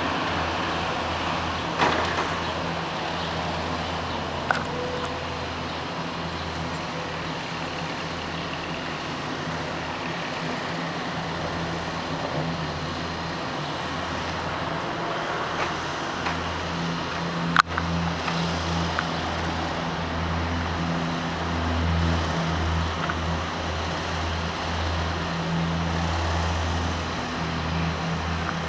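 Steady distant city traffic noise with a low, wavering hum, broken by a few sharp clicks, the sharpest about two-thirds of the way through.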